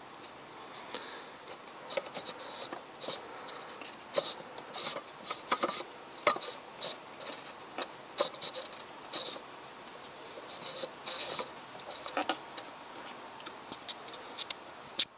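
Oil filter housing cover being turned by hand onto its threads: irregular light clicks and scrapes as the cap is screwed down and fingers work around it.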